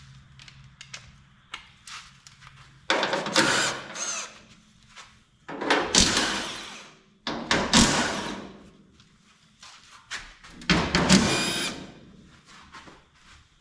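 Power driver run in four short bursts of about a second each, with a whining motor, backing out the bolts that hold the hood of a Minneapolis-Moline G900 tractor. Fainter clicks and rattles of metal parts being handled come between the bursts.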